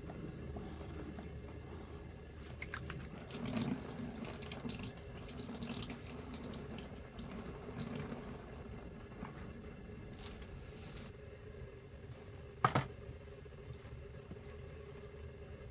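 Running water, with a single sharp knock near the end.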